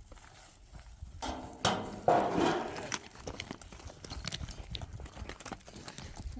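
Hooves of a walking horse clopping, with a louder pitched sound about two seconds in.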